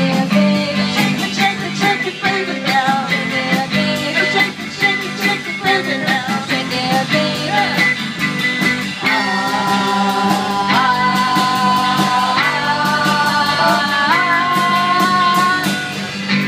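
Live rock band playing: electric guitars over a steady drumbeat, with singing. In the second half long held notes climb in steps.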